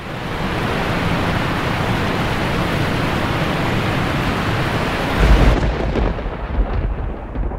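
Thunderstorm: a steady hiss of heavy rain, with a deep rumble of thunder coming in about five seconds in as the hiss fades.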